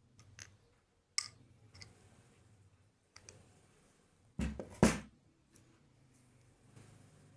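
Scattered sharp clicks and light taps from parts and tools being handled, with two heavier knocks in quick succession about four and a half seconds in.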